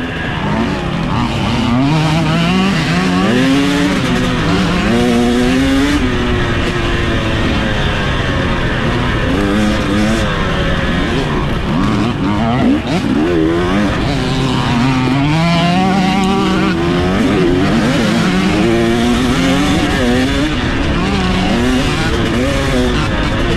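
An off-road race engine revving hard, its pitch climbing and dropping again every second or two as the throttle is worked, over a steady rush of noise.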